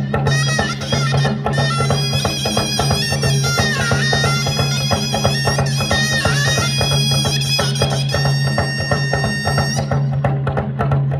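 Traditional dance music: a reedy, bagpipe-like pipe plays a wavering melody over fast, steady drumming and a low steady hum. The pipe stops abruptly about ten seconds in while the drumming carries on.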